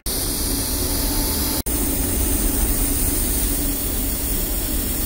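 Steady low roar with a hiss over it, the constant machinery and air background on a container ship's deck, with no wrench clicks standing out. It drops out for an instant twice, right at the start and after about a second and a half.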